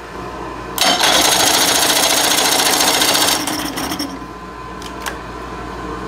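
Electric starter cranking a 1990s 30 hp Evinrude two-stroke outboard for about two and a half seconds, the engine turning over without catching. The owner puts the slow start down to a battery that is getting weak.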